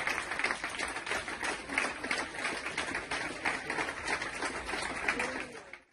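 Audience applauding, a dense patter of many hands clapping, fading out near the end.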